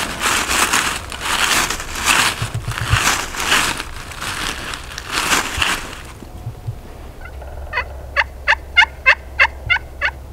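Wild turkeys gobbling loudly at close range, several gobbles in the first half. Near the end comes a run of about eight evenly spaced, sharp turkey yelps.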